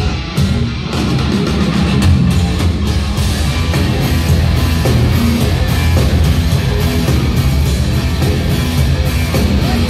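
Heavy metal band playing live and loud: distorted electric guitars over heavy bass and steadily beating drums.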